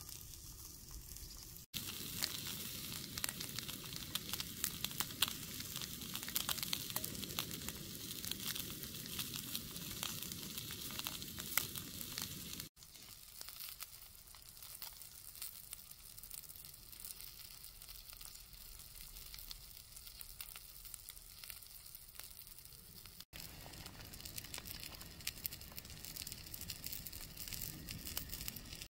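Trout frying in oil in a skillet: a steady sizzle full of small crackles and pops. The sizzle is louder at first and drops to a softer hiss about thirteen seconds in, and it cuts out for an instant three times.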